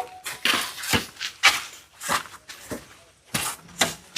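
Mason's trowel scraping and knocking on mortar and bricks: about seven short, irregular scrapes and taps, roughly two a second.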